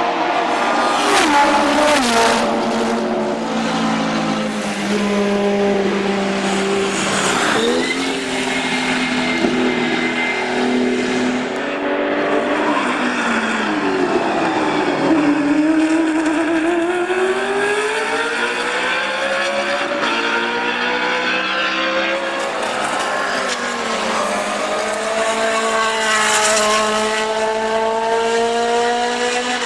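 Historic endurance racing cars running hard on the circuit: the engine notes climb steadily under acceleration and drop sharply at gear changes, with more than one engine heard at once at times.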